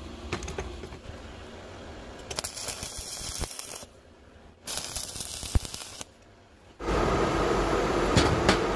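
Stick arc welding on steel, crackling and hissing in two short runs of about a second and a half each. Near the end a louder steady whirring noise takes over.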